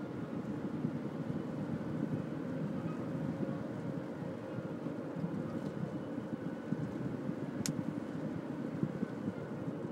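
Steady road noise of a car's tyres and engine on a wet road, heard from inside the cabin, with one short sharp click near the end.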